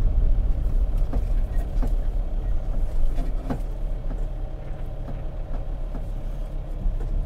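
A car driving slowly: a steady low rumble of engine and tyres that grows a little quieter as it slows, with a few light knocks.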